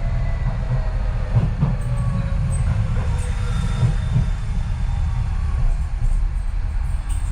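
Docklands Light Railway train running, heard from inside the carriage: a steady low rumble of wheels on track with a faint, slowly falling whine.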